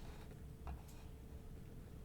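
Quiet room tone with a faint steady hum and a couple of faint short clicks less than a second in.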